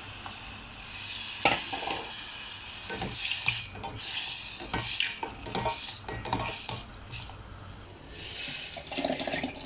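Button mushrooms frying in butter in a pan, sizzling steadily, while a utensil stirs them and knocks and scrapes against the pan many times.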